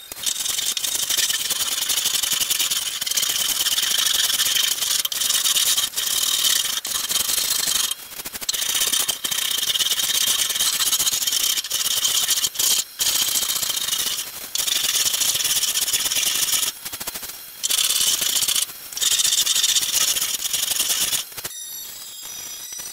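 Wooden plank tabletop being sanded: a loud, steady scratchy hiss of abrasive on wood, broken by a few short pauses and stopping shortly before the end.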